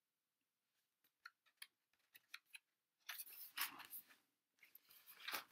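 Sketchbook being handled and a page turned: a few faint clicks, then paper rustling in several bursts from about three seconds in.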